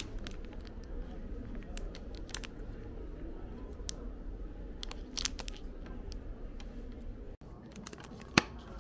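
Clear plastic souvenir-magnet packaging crinkling and crackling in short, scattered clicks as it is handled, over a low steady background hum. A single sharp click near the end.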